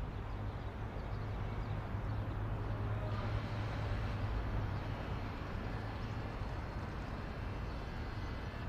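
Steady ambience of distant traffic with a low hum, brightening slightly about three seconds in.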